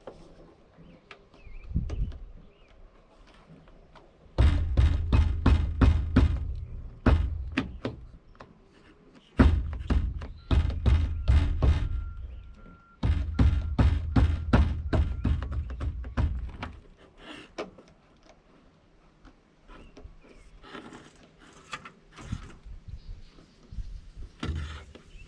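Rapid thumping blows, about four a second, in three runs of a few seconds each, with lighter knocks and rubbing between them. These are from work on fitting a truck windshield and its rubber seal.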